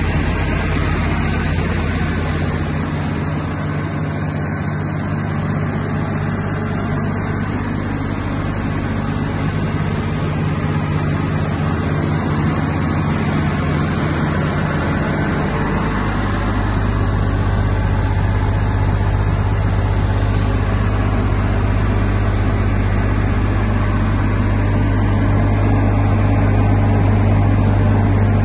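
Diesel engine of a Wirtgen W 100 F cold milling machine running steadily. The low engine note grows louder about halfway through.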